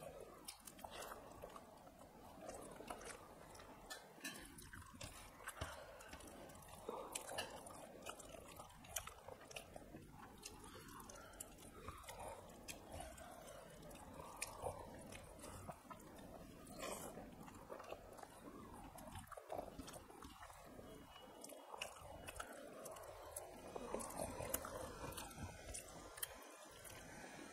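Chewing and mouth sounds of people eating rice and fish curry by hand, with frequent small wet clicks and smacks.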